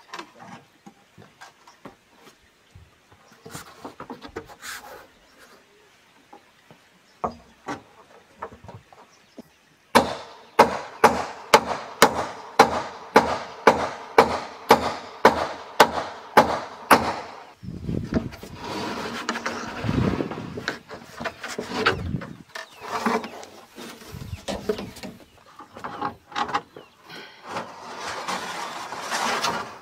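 Claw hammer striking a corrugated fibre-cement roofing sheet in a steady run of blows, about two a second, to knock its nails loose. After that comes a stretch of scraping and rubbing as the sheet is worked up and slid over the wooden rafters, with lighter scattered knocks before the hammering.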